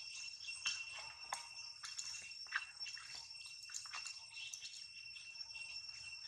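Steady high-pitched drone of insects, with many short chirps and clicks scattered over it.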